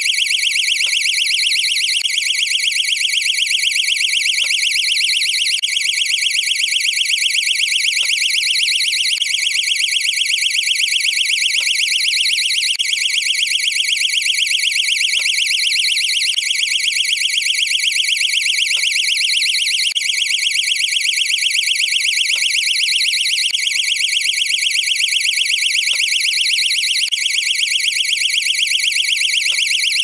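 Door/window sensor burglar alarm sounding continuously: a shrill, rapidly pulsing electronic tone that holds steady without a break.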